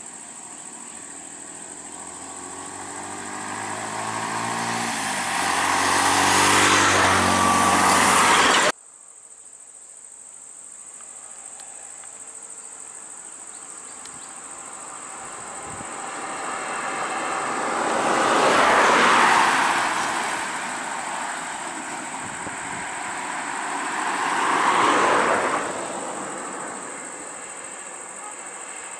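Road vehicles driving past one after another: an engine grows louder and rises in pitch as it approaches, then cuts off abruptly about a third of the way in. Two more vehicles then swell past, a few seconds apart, over a steady high-pitched insect drone.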